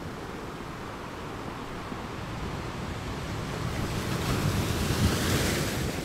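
Ocean surf breaking and washing up a sandy beach, a steady rumble of water that swells into a louder hiss of foam about four to five seconds in, then falls away at the end.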